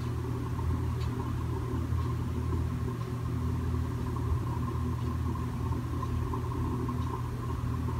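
A steady low hum of a running motor.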